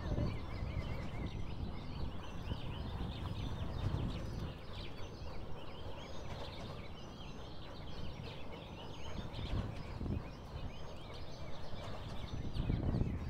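Many birds calling over the water, a dense chatter of short, high calls, over a low, gusty rumble of wind on the microphone.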